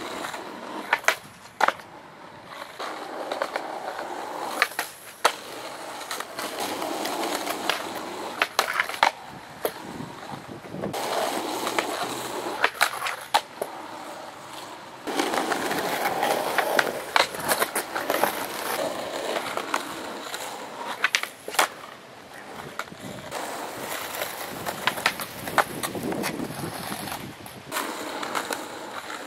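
Skateboards rolling on rough asphalt. The wheel rumble swells and fades as riders push in toward the ledge, broken many times by sharp clacks of the boards popping and slapping down.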